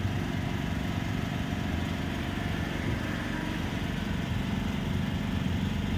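Steady low-pitched hum of an engine-type machine running at a constant speed.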